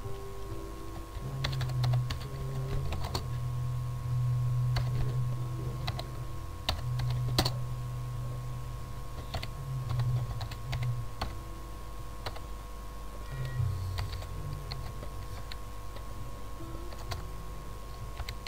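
Computer keyboard typing: irregular, unhurried key clicks, with a low hum underneath through much of it.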